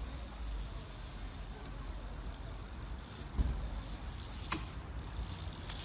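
BMX bike on concrete over a low outdoor rumble: one heavy thump about three and a half seconds in as the bike comes down on a ledge, then a short sharp click about a second later.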